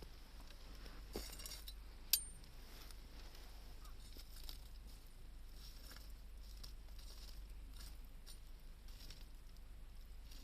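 Wood fire crackling faintly, with scattered small pops and one sharp, briefly ringing click about two seconds in.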